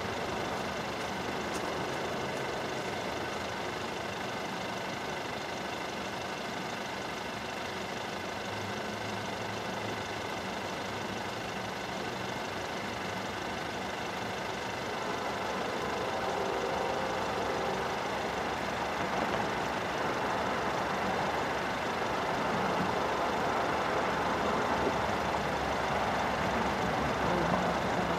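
Diesel freight locomotive approaching from a distance: a steady engine rumble that grows louder over the second half.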